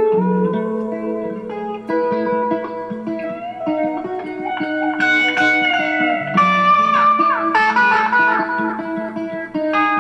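Electric guitar played through a pedalboard: long ringing notes, with several sliding notes in the second half.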